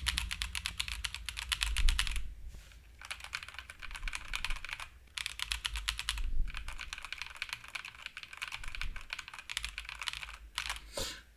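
Rapid typing on mechanical keyboards with linear switches, in three runs with short pauses between. It is a typing-noise test comparing the gasket-mounted HyperX Alloy Rise 75 with a Logitech G Pro.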